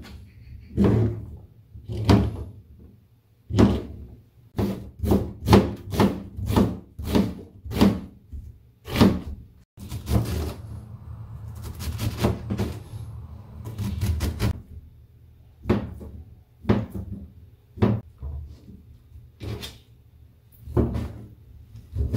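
Kitchen knife chopping down onto a plastic cutting board, slicing enoki mushrooms and rolled fish cake: a long run of sharp knocks, one to two a second, with a short break about ten seconds in.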